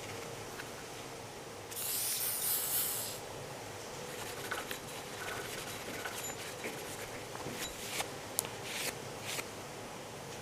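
A burst of hissing lasting about a second and a half, then scattered light clicks and scrapes over a steady background hiss.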